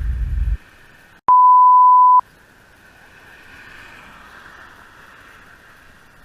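A single loud, steady beep tone of just under a second, starting a little over a second in and stopping abruptly. Everything else is muted around it, as with a beep dropped in during editing. Before it, the tail of a deep boom cuts off suddenly; after it there is only faint outdoor background noise.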